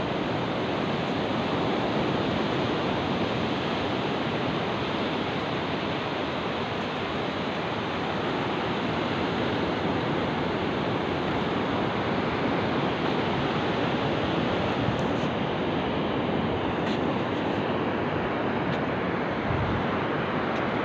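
Sea surf breaking and washing up over a flat sandy beach: a steady rushing.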